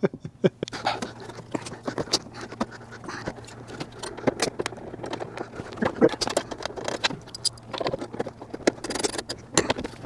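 Irregular light metal clicks, taps and rattles with some rustling as the seatbelt's anchor rod is fitted back at the door sill of a 2001 VW Beetle.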